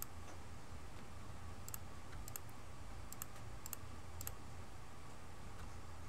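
Computer mouse clicking: about six sharp clicks in the first few seconds, several in quick pairs, over a steady low hum.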